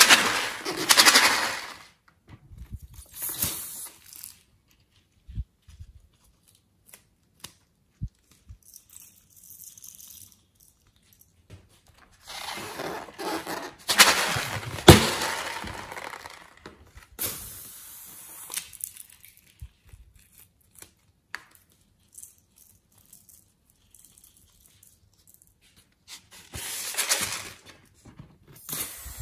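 Hands gripping and squeezing filled rubber balloons, with rubber rubbing and squeaking against skin in several separate bursts and short quiet gaps between. The longest and loudest bout comes about halfway through.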